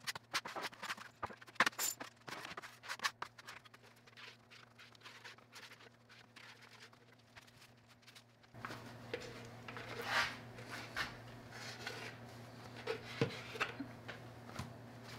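A flat metal blade scraping and smoothing wet feather-finish concrete underlayment across a countertop, in a run of short strokes with small clicks. About eight and a half seconds in a low steady hum comes up underneath.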